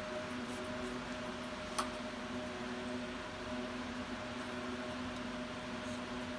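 Steady machine hum with an even hiss, and a single sharp click about two seconds in.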